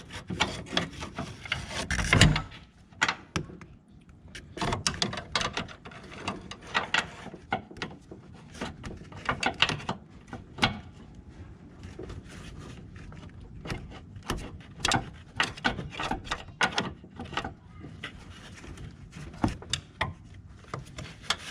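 Metal hand tools clinking and knocking in an engine bay as a 3/8-inch drive flex-head ratchet is fitted onto a serpentine belt tensioner. Irregular sharp clicks run throughout, with one heavier knock about two seconds in.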